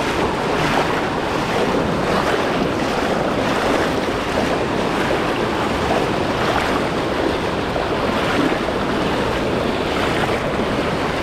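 River rapids rushing over a shallow rock ledge: a loud, steady rush of white water.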